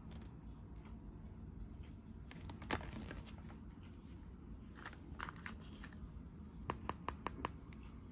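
Soft handling of a plastic toy surprise capsule and its contents: a paper leaflet and plastic wrapper rustling and crinkling. There is a sharp click about a third of the way in, and near the end a quick run of about five sharp plastic clicks.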